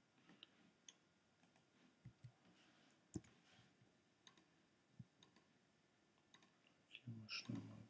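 Faint computer mouse and keyboard clicks, about a dozen scattered irregularly over near silence, with a soft low sound near the end.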